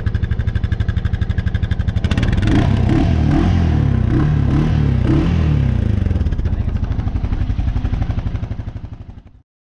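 ATV engine running with an even pulsing beat, then revved hard about two seconds in, its pitch rising and falling several times before it eases back. The sound cuts off suddenly near the end.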